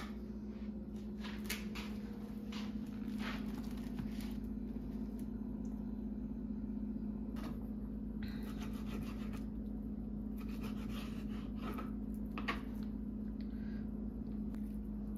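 Kitchen knife cutting raw boneless chicken breast on a plastic cutting board: scattered soft scrapes and taps of the blade against the board, over a steady low hum.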